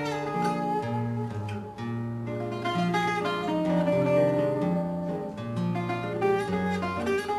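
Instrumental fado accompaniment with no singing: a Portuguese guitar plucking the melody over a viola (classical guitar) playing a stepping bass line and chords.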